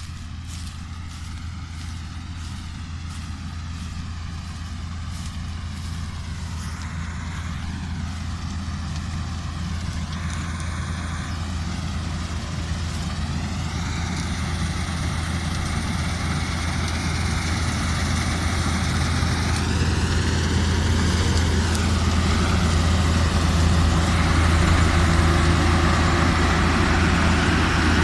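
New Holland 8070 combine harvester running while it cuts wheat: a steady low engine hum with the whirr of the threshing machinery above it. It grows steadily louder throughout.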